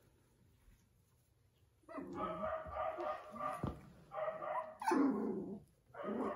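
A 4½-week-old puppy barking and yelping in three drawn-out bouts, the first starting about two seconds in.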